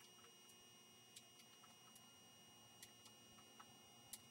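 Near silence: faint recording hiss with a few thin, steady high tones and scattered faint clicks, the camcorder's own noise.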